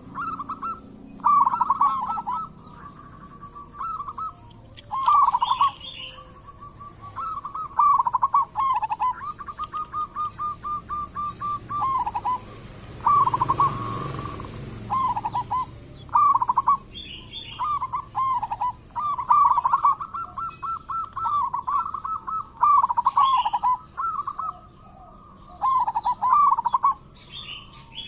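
Zebra doves (perkutut) cooing, repeating short trilled coo phrases over and over, with thinner high chirps between phrases.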